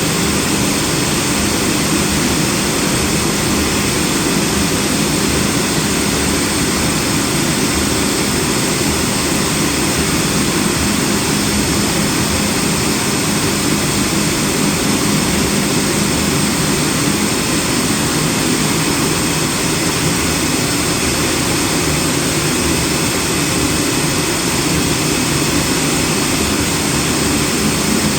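CNC cutting machine running steadily while it cuts a snowboard base sheet: a loud, even mechanical drone with a steady low hum, unchanging throughout.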